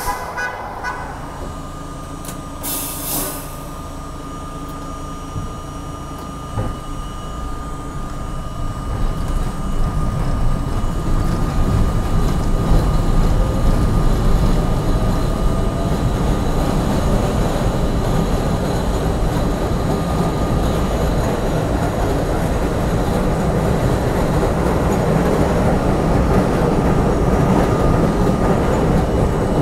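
New York City subway train heard from aboard at the front window on an elevated line: a steady tone and a short hiss in the first few seconds, then the rumble builds from about eight seconds in as the train picks up speed, with a faint rising motor whine, and it runs on steadily over the rails.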